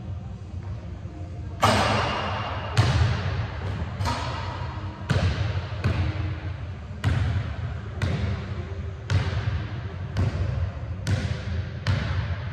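Basketball bouncing on a hardwood gym floor about once a second, each bounce echoing through the large hall. The first and loudest hit comes a little under two seconds in.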